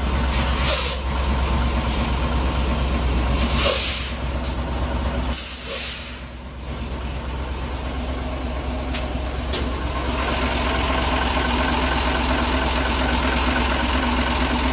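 Heavy diesel timber truck's engine running steadily, with several short air-brake hisses.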